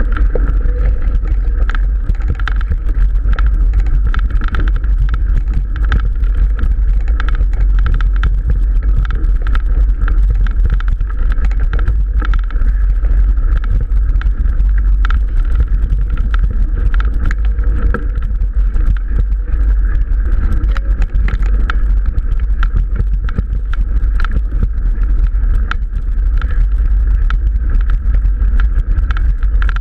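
Mountain bike ridden fast over a rough, overgrown dirt track: a constant deep rumble of wind buffeting the microphone, with dense rattling and clicking from the bike over the bumps and tall grass brushing past.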